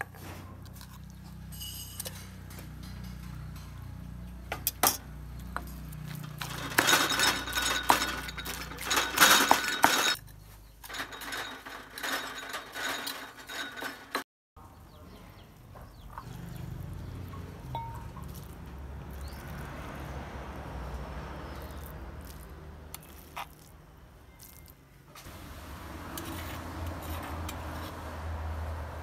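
A metal spoon clinking and scraping against a stone mortar while a stone pestle pounds and works a wet paste; the knocks and clinks come thick and fast in the first half, then give way to softer scraping and stirring.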